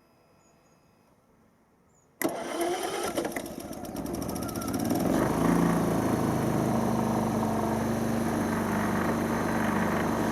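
Hyundai EFI2500SEI inverter generator starting on its electric start. After a short silence the engine cranks with a brief clatter, then catches at about two seconds in and runs up. By about five seconds in it settles into a steady, really quiet run.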